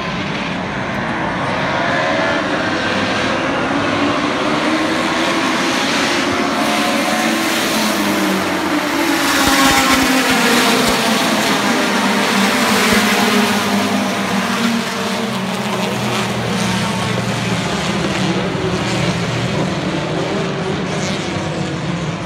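A pack of race cars running flat out past on a circuit straight. Several engines overlap at high revs, their pitch sweeping and falling as each car goes by. The sound swells to its loudest about ten seconds in, then eases as the field moves away.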